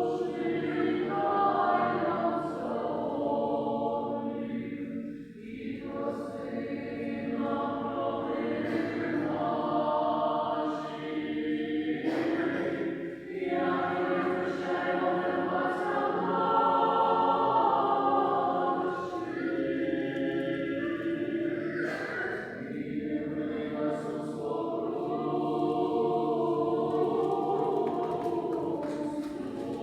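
Choir singing unaccompanied, in held chanted phrases with short pauses between them.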